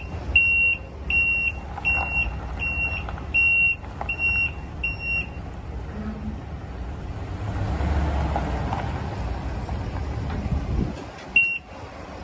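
Ford F-350's 6.2 L gas V8 idling with a steady low rumble, under a high electronic beep repeating about one and a half times a second that stops about five seconds in; one more beep comes near the end.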